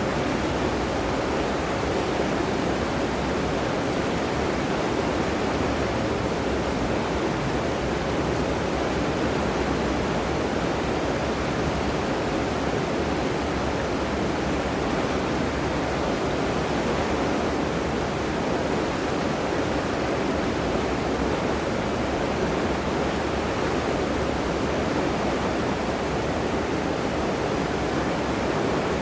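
River water rushing in a steady, unbroken wash.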